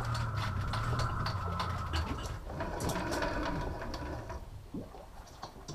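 Electric fishing reel's motor running with a steady hum and a rapid mechanical clicking. The hum stops about two and a half seconds in, leaving scattered lighter clicks.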